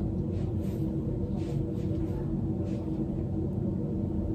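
A steady low hum with a constant mid-pitched tone running under it, and a few faint, brief rustles.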